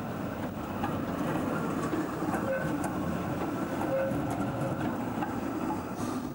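Articulated electric tram rolling past close by on curved street track: a steady rumble of wheels on rail, with a few light clicks. It swells in the middle and eases off near the end as the tram moves away.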